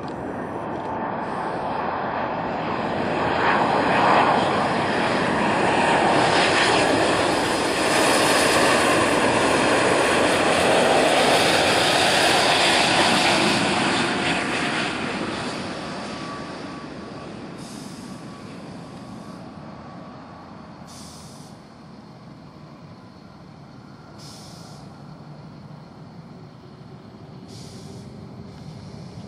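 Jet airliner's engines passing by: a swelling rush of engine noise that builds over the first few seconds, stays loud for about ten seconds, then slowly fades away.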